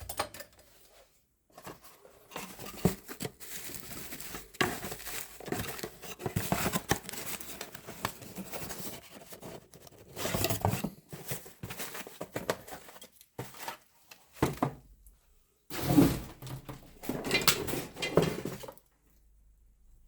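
Victorinox Rescue Tool pocket knife being handled, with clicks, scrapes and rustling in irregular bursts. The loudest burst comes about 16 seconds in.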